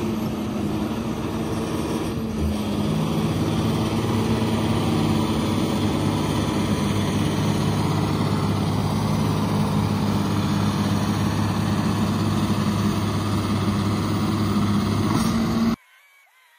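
John Deere tractor's engine running steadily under load while the tractor sits stuck in deep mud; the drone cuts off suddenly near the end.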